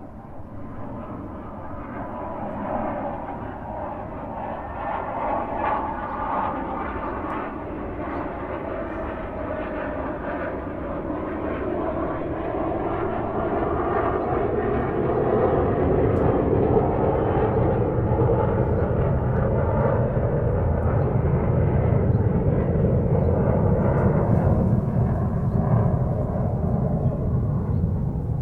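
Airplane engines and rushing air heard from inside the passenger cabin, growing louder over the first half and then holding steady, with a deep rumble coming in about halfway.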